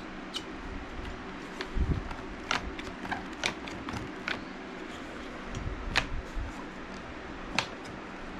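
Quick-Grip one-handed bar clamps being squeezed and set against a plywood press: a scatter of sharp clicks and knocks from the triggers and jaws, the loudest two near the end, over a steady low hum.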